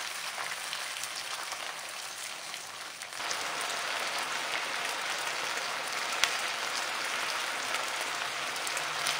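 Chicken wings sizzling in a frying pan with Coca-Cola; about three seconds in the sizzle grows louder as the wings fry in the dark cola glaze, with one sharp click of the tongs near the middle.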